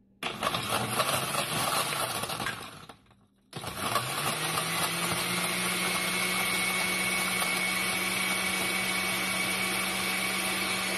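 Oster glass-jar countertop blender churning a coffee, milk and ice cream mix. It runs for about two and a half seconds, stops briefly, then starts again with its motor note rising as it comes up to speed, and runs steadily.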